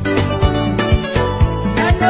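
Upbeat instrumental backing music with a steady drum beat, about two strokes a second, under held instrumental notes.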